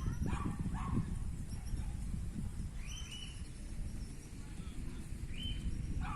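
Animal calls: a couple of short yelps, like a dog's, in the first second, then short high calls every two to three seconds over a low rumble.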